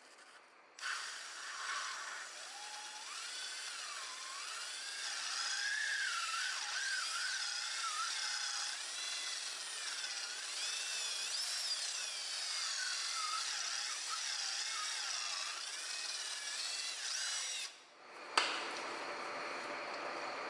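Small handheld power tool running, its whine wavering in pitch under load as it grinds away a small flange inside the PCV port of a Chevrolet Cruze intake manifold. It starts about a second in, stops briefly near the end and starts again.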